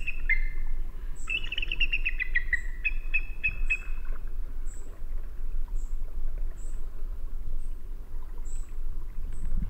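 Small birds singing: bursts of quick falling chirps and trills in the first few seconds, and a thin, high chirp repeating about every three-quarters of a second throughout, over a low steady rumble.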